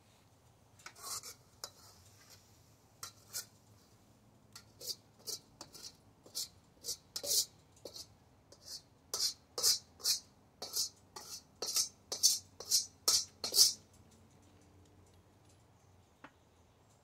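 Metal spatula scraping and knocking against a wok: a run of short, sharp scrapes, about two a second, getting louder and closer together before stopping a few seconds before the end.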